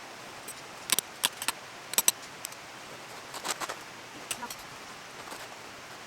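Scattered sharp clicks and clinks of small hard objects being handled, in irregular clusters over a faint steady hiss.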